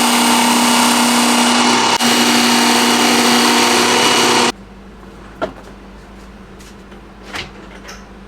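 Electric knife-sharpening machine's motor running with a steady whine, then switched off abruptly about four and a half seconds in; afterwards a couple of light clicks.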